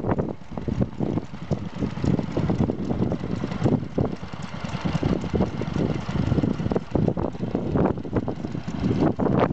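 Wolseley air-cooled single-cylinder stationary engine running, with a busy, uneven beat, and wind buffeting the microphone.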